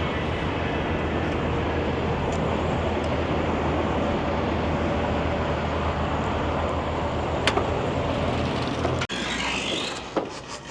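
Semi truck's diesel engine running steadily, heard from inside the cab with a haze of road or cab noise; the sound drops off sharply about nine seconds in.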